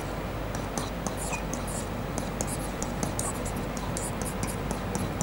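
Stylus writing on an interactive whiteboard: a quick, irregular run of light taps and short scratches as words are handwritten, over a steady low room hum.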